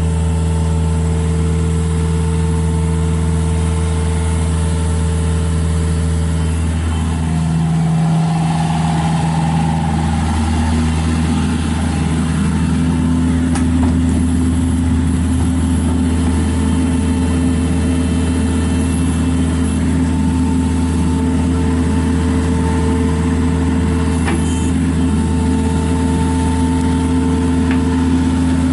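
John Deere 50G mini excavator's diesel engine running steadily, its note dipping and shifting about eight seconds in before settling again.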